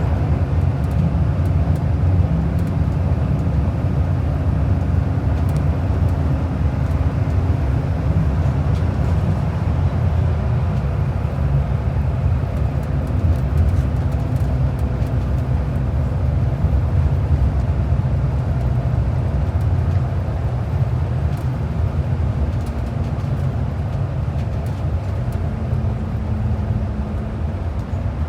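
Commuter bus under way, heard from inside: a steady low rumble of engine and road noise, with a faint engine tone that slowly sinks in pitch and rises again near the end.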